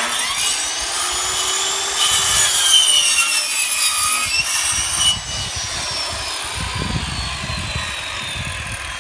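Circular saw running and cutting an angle through a piece of siding, guided along a track on a miter table. The motor's whine sags in pitch as the blade bites, then runs steadily to the end of the cut.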